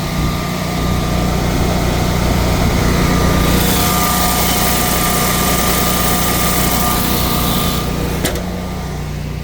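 Generac whole-house standby generator running steadily on propane, a constant engine hum with a faint steady whine over it. A rushing hiss joins it for about four seconds in the middle, and there is a single click near the end.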